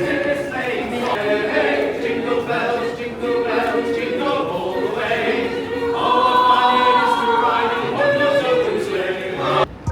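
A choir singing, several voices holding and moving between sustained notes; it cuts off suddenly just before the end.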